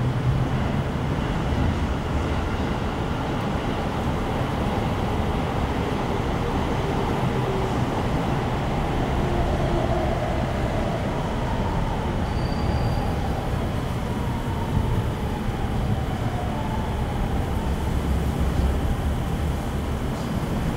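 Steady low rumble of distant traffic, with faint passing-vehicle tones rising and falling near the middle.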